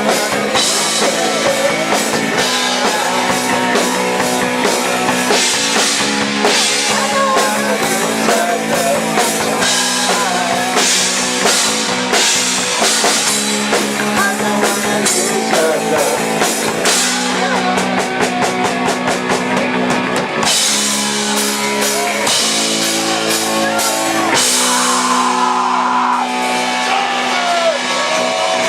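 Live rock band playing: drum kit, electric guitar and bass over a steady bass line, with a stretch of fast cymbal strokes a little past the middle.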